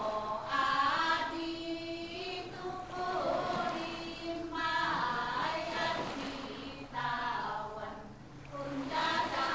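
Traditional Filipino group chanting from a field recording of native singers: several voices singing in phrases that begin anew about four times, every two to three seconds.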